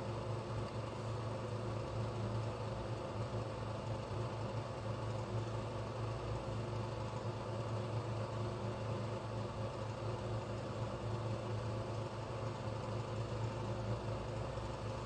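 A steady, low mechanical hum that holds level without change, with no knocks or sudden events.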